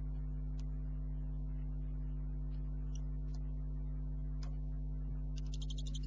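Steady electrical mains hum at about 50 Hz with its overtones, with a few faint, scattered high clicks and a quick run of rapid ticks near the end.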